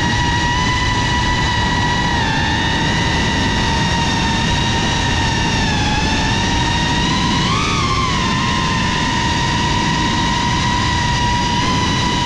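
GEPRC CineLog35 FPV cinewhoop drone in flight, its brushless motors and ducted propellers making a steady high whine over a rush of air. The pitch dips slightly a few times and rises briefly about two-thirds of the way through as the throttle changes.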